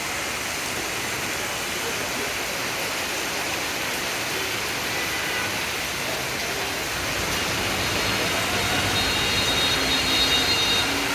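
Heavy downpour of rain making a steady, even hiss, with a low rumble building a little louder in the second half.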